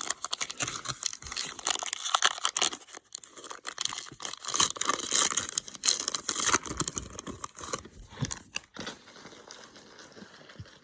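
Baseball card pack wrapper being torn open and crinkled, a dense run of crackling and tearing that thins out over the last few seconds.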